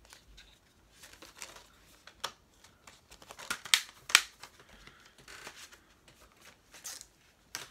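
Plastic Blu-ray cases being handled: scattered clicks and snaps, the loudest a little before and about four seconds in, with some soft rustling near the end.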